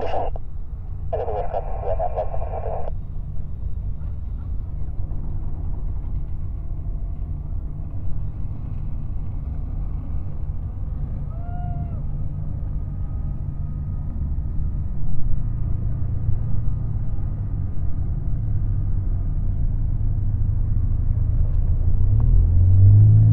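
Low, steady engine rumble that grows stronger in the second half, with an engine note rising in pitch just before the end.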